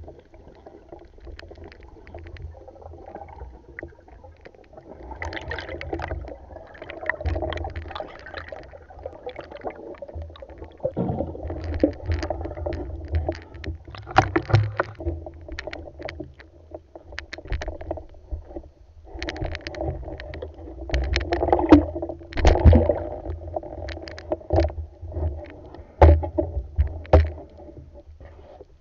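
Underwater sound through a diving camera's waterproof housing: a muffled, constant low rumble of moving water with many scattered knocks and clicks from the speargun and the catch being handled.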